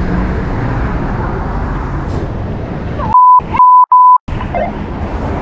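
Steady outdoor background noise, then about three seconds in a loud pure beep tone in three short pulses with all other sound cut out around them: an edited-in censor bleep.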